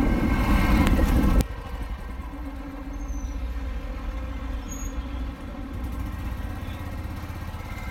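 Motorcycle engine running at low speed on the move, with a deep steady rumble. It gets suddenly quieter about a second and a half in.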